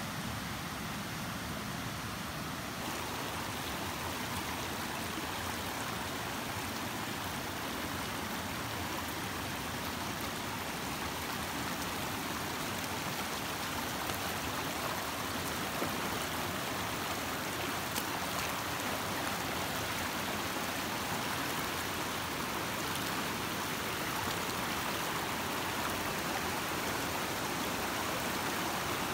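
Shallow river flowing over stones: a steady rushing of water.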